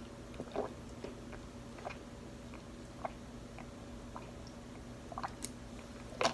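A person gulping water from a plastic bottle: a few soft swallows roughly a second apart, over a low steady hum.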